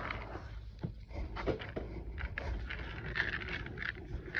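A hand stirring horse feed pellets mixed with supplements and oil in feed buckets: a run of uneven rustling, scraping strokes as the pellets grind against each other and the bucket sides.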